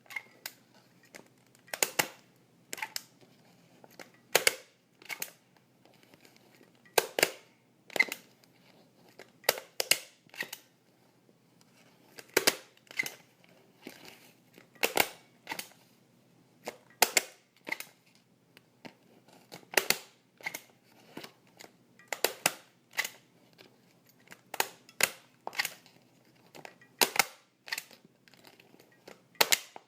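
Common office stapler stapling papers again and again: a sharp snap as the stapler is pressed down, with one or two softer clicks as it springs back, about every two and a half seconds.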